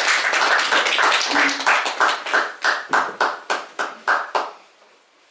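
A small audience applauding by hand: the clapping is dense at first, then thins to a few separate claps and stops about four and a half seconds in.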